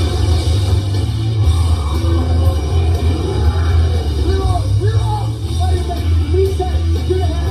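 Rock music with a heavy bass line and a singing, shouting voice, played back through a sound bar and subwoofer.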